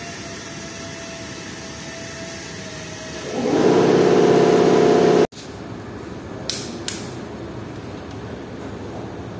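A loud steady mechanical hum for about two seconds that cuts off suddenly, then two sharp metallic clicks close together from a torque wrench tightening the connecting-rod bolts of a MAN engine.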